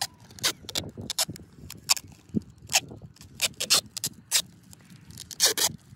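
Hand-handling noises of a sutli firecracker being wrapped and fastened onto a pineapple: a dozen or so short, sharp rustles and scratches at irregular intervals.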